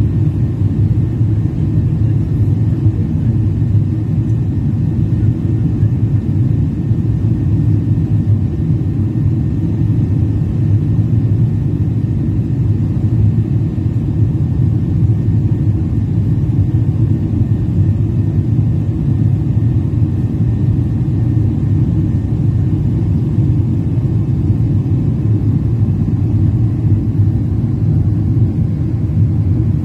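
Steady low cabin rumble of a jet airliner in flight, engine and airflow noise heard from inside the cabin, even throughout with no changes.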